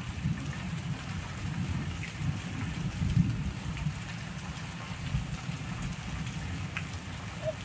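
Rain falling steadily on a flooded street, splashing into the standing water.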